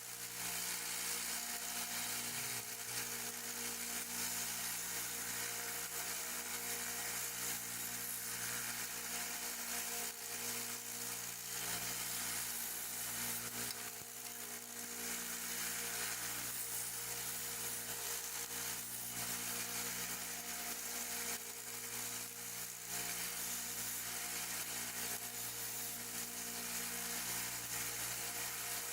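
Sanding on a pocket knife's repaired bone handle: a steady abrasive hiss as squeezed-out glue is sanded off the edges, with a faint steady hum underneath.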